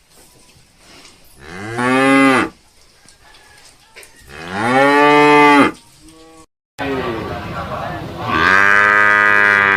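Water buffalo mooing three times, each call rising and then falling in pitch; the third call is the longest and runs on to the end.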